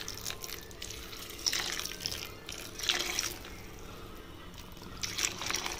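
Thick coconut milk being poured into a pan of fried masala, with uneven splashing and liquid sounds as it pools among the onions and tomatoes.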